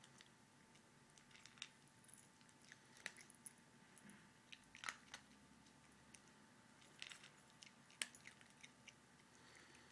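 Teacup Chihuahua chewing dry kibble: a scatter of faint, irregular crunches, the loudest about five and eight seconds in.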